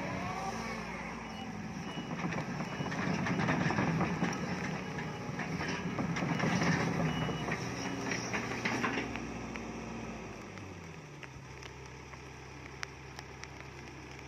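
Sumitomo crawler excavator's diesel engine running while it moves on its steel tracks, with the tracks clattering. About ten seconds in, the engine note drops lower and the machine goes quieter.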